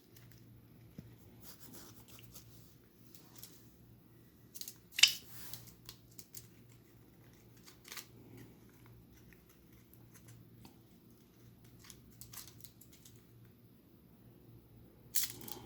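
Faint, scattered small clicks and paper crinkling as a pet bird picks at and tugs a paper banknote, with a sharper crackle about five seconds in and another near the end.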